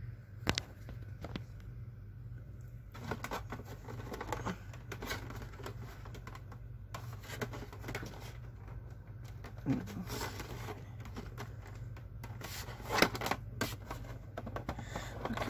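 Handling noise from a mounted talking fish plaque being turned over and fumbled on a wooden surface: scattered clicks, knocks and scrapes, the loudest a cluster of knocks near the end.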